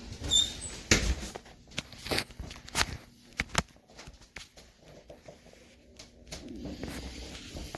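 Footsteps on a floor: a handful of short, sharp knocks roughly a second apart, with a brief faint high squeak near the start, then only soft small clicks.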